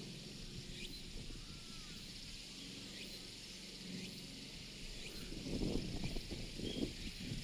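Outdoor ambience with a steady hiss and a few faint, short bird chirps. About five seconds in, a couple of seconds of louder, irregular low rustling noise.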